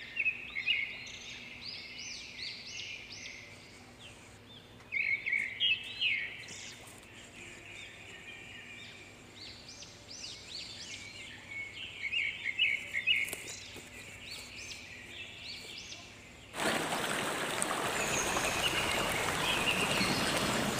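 Wild birds calling in repeated clusters of short, sharp chirps and quick upward-sweeping notes. About three-quarters of the way through, a steady rushing noise starts abruptly and covers everything.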